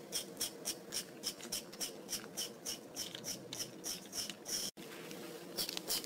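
The wheels of a toy Thomas the Tank Engine train and its magnet-coupled carriages rolling across a play mat as they are pushed by hand: an even, rapid scratchy clicking, about five ticks a second.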